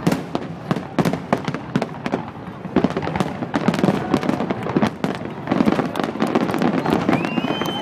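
Fireworks display: a rapid, dense run of overlapping bangs and crackles from bursting shells.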